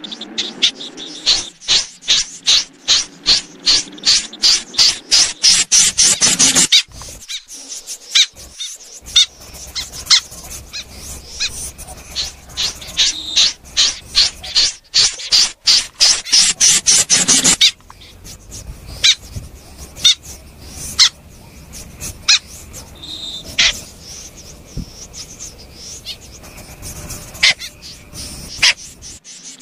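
Snipe calling: a fast run of sharp, high notes that speeds up for about six seconds and breaks off, a second run of the same a few seconds later, then scattered single notes.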